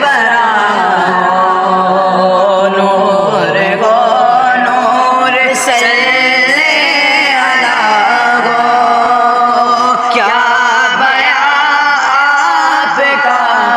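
Young male voices singing an Urdu naat, with long held notes that waver and glide in pitch.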